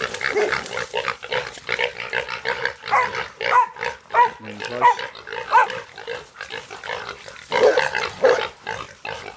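A mob of pigs bailed up by dogs, squealing and grunting in quick, ragged calls, with a louder run of calls near the end.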